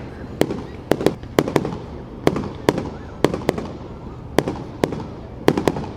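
Fireworks display: about a dozen sharp bangs of bursting shells, coming at irregular intervals, each trailing off in a short echo.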